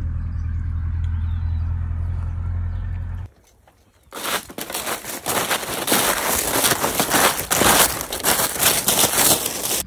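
A steady low hum for the first three seconds, which cuts off. After a short pause, footsteps crunch through a thick layer of dry fallen leaves close to the microphone, a dense crackle with each step.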